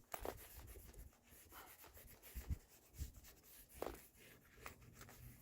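Faint rubbing on a handmade leather sheath as WD-40 is worked into it, with a few light handling knocks.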